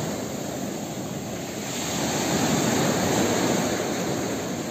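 Small waves breaking and washing up a sandy beach in a steady rush of surf that swells again about two seconds in.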